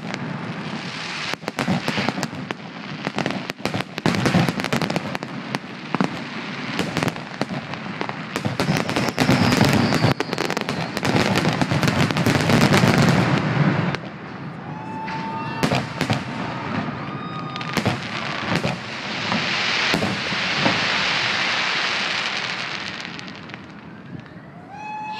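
Fireworks grand finale: a dense, rapid barrage of bangs and crackling that thins to scattered bangs about halfway through, then fades near the end.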